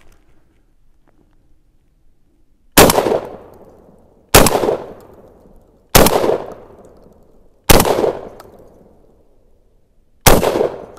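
Five shots from an Emperor Arms Mogul Ultra gas-operated semi-automatic 12 gauge shotgun, the first four about a second and a half apart and the last after a slightly longer pause. Each shot is a sharp report with a fading echo, and the gun cycles every round without a stoppage.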